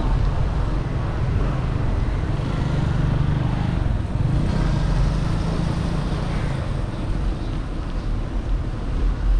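Street traffic heard from a moving bicycle: a bus engine running close by with a steady low rumble that shifts in pitch for a few seconds, over road and tyre noise on a wet street.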